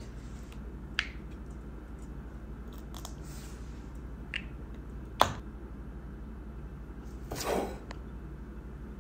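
Small plastic clicks and snaps from handling a squeeze ketchup bottle and its flip-top cap, the sharpest about five seconds in. A short squishy rush follows near the end, over a faint steady room hum.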